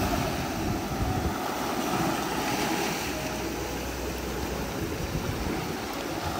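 Small ocean waves washing in over sand and black lava rock, a steady rush of surf.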